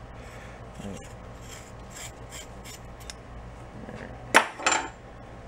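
Scissors cutting through woven exhaust heat wrap: a run of faint, short rasping snips through the cloth, then two much louder rasping scrapes close together near the end.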